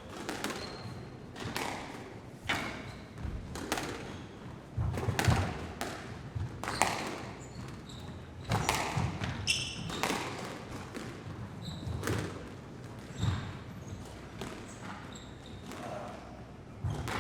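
Sports hall ambience: balls bouncing on a hard floor at an irregular pace, each thud echoing in the large hall, with brief high squeaks and indistinct voices in the background.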